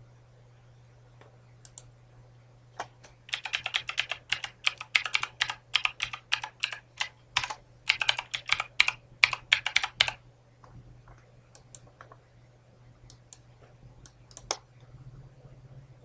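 Computer keyboard typing: a quick run of keystrokes for about seven seconds starting a few seconds in, then a few scattered single clicks near the end.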